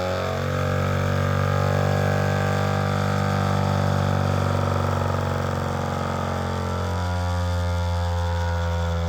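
A brushless DC motor spins a small axial-flux alternator kit's magnet rotor at speed, giving a steady electric whine over a hum. The tone changes a fraction of a second in and changes back about seven seconds in.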